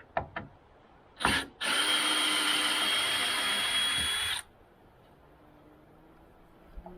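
Power drill-driver spinning, used to take parts off a boat interior: a short blip about a second in, then a steady run of about three seconds that stops abruptly. A few light handling clicks come just before.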